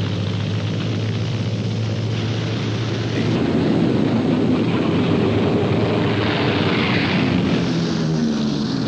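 Piston-engine propeller aircraft running steadily, growing louder about three seconds in.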